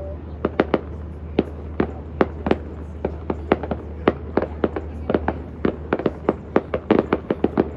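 Fireworks display: a fast, irregular string of sharp bangs, several a second and bunching together near the end, over a steady low hum.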